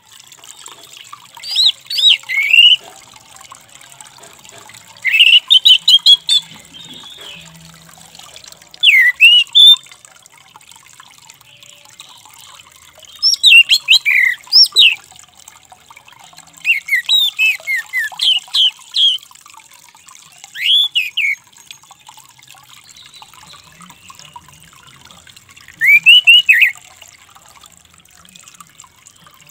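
Orange-headed thrush singing: seven short phrases of quick, sweet whistled notes that slide up and down, with pauses of a few seconds between phrases.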